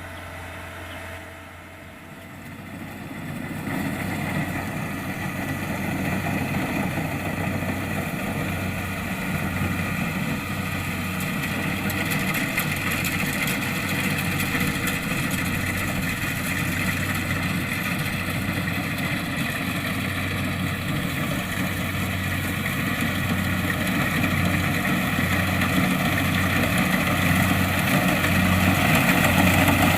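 Diesel engine and threshing machinery of a Kubota DC-70 Plus rice combine harvester running steadily. It rises in level about three seconds in, then grows slowly louder toward the end.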